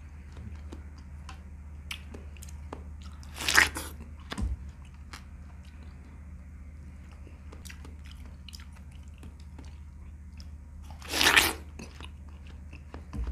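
A person biting into a slice of watermelon and chewing it close to the microphone: two loud bites, about three and a half seconds in and again about eleven seconds in, with soft clicking mouth sounds between, over a steady low hum.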